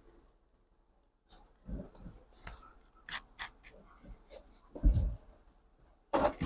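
Scattered clicks, scrapes and knocks as a car seat is worked loose by hand, with a heavy thump about five seconds in and a louder clatter near the end.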